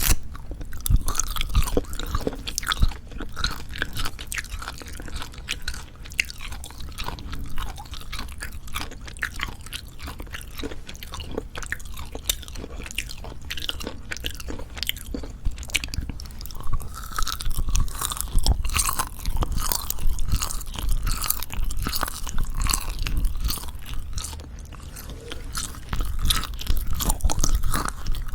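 Close-miked chewing of Jeju black pork jerky: dense, irregular wet clicks and crunchy crackles of the dried meat being bitten and worked between the teeth.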